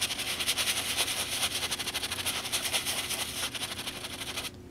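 A bristle shoe brush scrubbing an Air Jordan 4 sneaker in rapid back-and-forth strokes, a steady scratchy brushing that stops briefly near the end.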